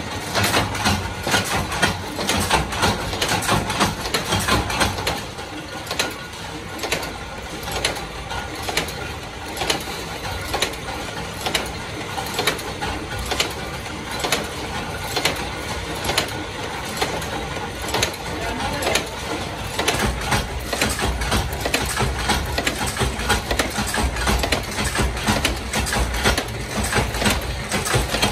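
Belt-driven lamp-holder screw-shell forming machine running, a fast rhythmic metallic clatter of its rams and slides striking with every stroke. A deeper running rumble grows louder about twenty seconds in.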